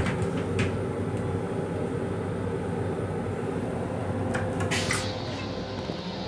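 Steady rumble and hum of a Metro-North M7 electric railcar, heard inside its small restroom. A few sharp clicks and knocks sound in the first second and again about four and a half seconds in.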